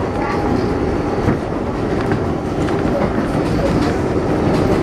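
An R142A subway train running at speed on elevated track, heard from inside the car: a steady rumble of wheels on rail with a few faint clicks over rail joints.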